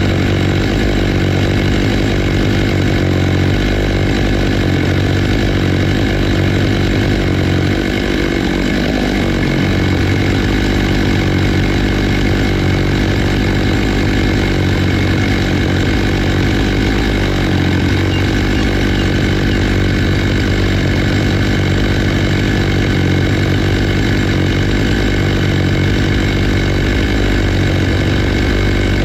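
Stihl MS 661 two-stroke chainsaw, fitted with a 20-inch bar and ripping chain on a chainsaw mill, running steadily at a constant pitch.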